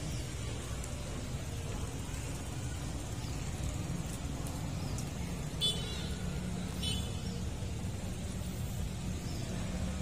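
Steady low rumble of outdoor background noise, with two brief high chirps about a second apart near the middle.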